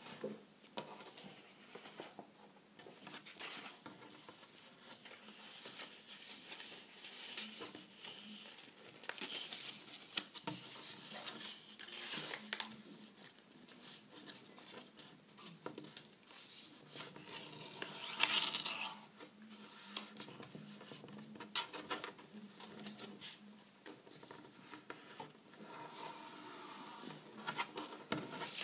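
A sheet of pink card being handled and folded on a tabletop: irregular rustling and crinkling as it bends, with small scrapes and taps as fingers press the creases. A louder crackling burst comes about two-thirds of the way through.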